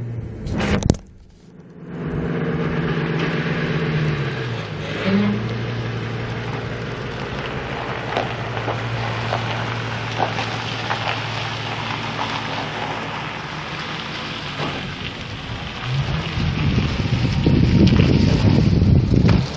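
Ford 6.8-litre V10 gas engine of a 1999 F450 Super Duty truck running, its idle dropping to a lower, steady speed about four to five seconds in. Near the end a louder, rougher rushing noise comes over it. A sharp loud knock sounds just under a second in.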